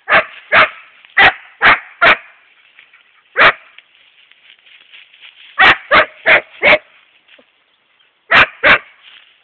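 Young Siberian husky barking: about a dozen short, sharp barks in groups, five in quick succession, a single bark, four more in a row, then two.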